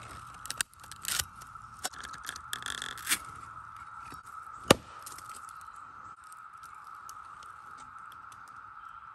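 Machete blade scraping and knocking against a bamboo cooking tube. There is a cluster of scrapes and clicks in the first few seconds and one sharp, loud knock about halfway through, over a steady high-pitched hum.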